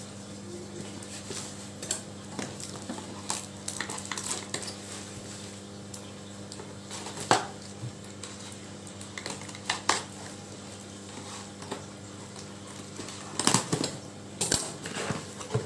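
Ceramic bowls and dishes clinking and knocking against each other as they are handled and unpacked, in scattered clinks with the loudest knocks about seven seconds in and again near the end.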